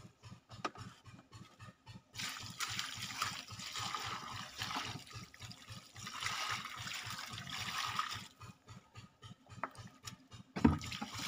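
Water poured from a plastic bucket, splashing steadily onto wet soil in a garden furrow from about two seconds in until about eight seconds in. A short thump near the end.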